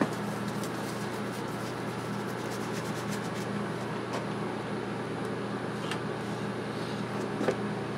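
Steady low hum over a faint hiss, with a few faint clicks.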